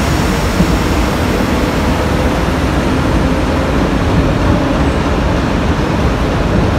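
Diesel engines of a pair of 442 class locomotives running steadily as they move slowly toward the platform, giving a continuous low rumble with a faint droning tone.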